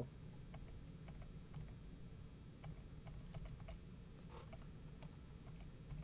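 Faint, irregular clicks from operating a computer, a dozen or so in quick succession, over a low steady hum.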